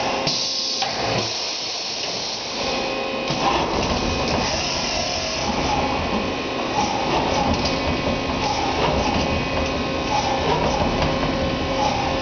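Kia KiaCenter 35II vertical machining center's axes traversing: the servo-driven spindle head and table moving, a whirring mechanical run over a steady machine hum and hiss.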